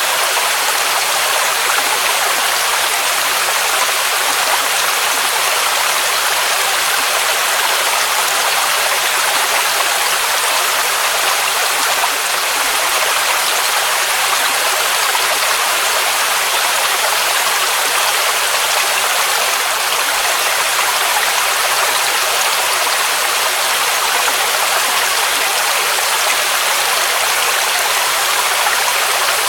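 Waterfall rushing: a steady, even hiss of falling water, loud and unchanging, with little deep rumble.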